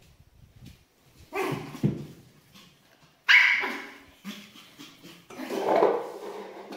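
Pomeranian puppy barking in short bursts, the loudest about halfway through.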